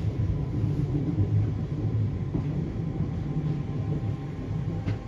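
Merseyrail Class 508 electric multiple unit heard from inside the carriage while running: a steady low rumble from the wheels and running gear, with a faint high steady whine over it and a single sharp click near the end.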